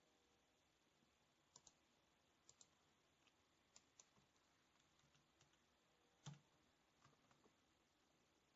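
Faint, scattered computer keyboard key presses over near silence, some in quick pairs, with one louder key knock a little over six seconds in.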